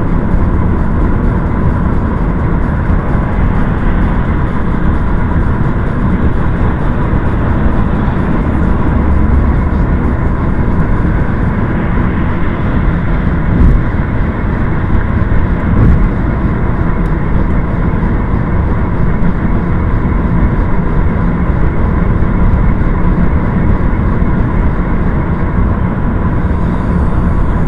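Loud, steady vehicle noise, with two short sharp clicks about halfway through.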